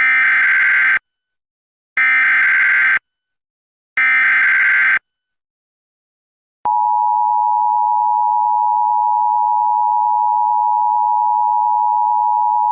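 Emergency Alert System SAME header: three one-second bursts of warbling digital data tones, about two seconds apart, opening a new alert. About six and a half seconds in, a steady, loud EAS attention tone starts and holds.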